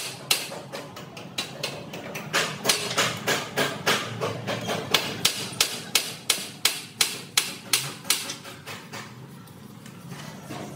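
Hammer blows struck in a steady rhythm, about three a second, dying away near the end.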